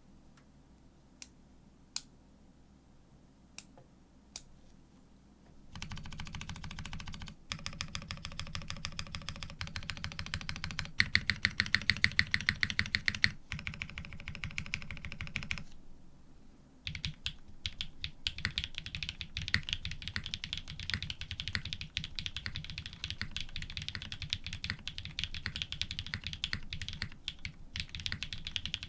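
Mechanical keyboard being typed on: lubed linear switches with Cream stems in Cherry housings, on an FR4 plate with GMK keycaps. A few single key presses come first, then fast continuous typing with a run of louder, evenly spaced strokes in the middle and a brief pause before the typing resumes.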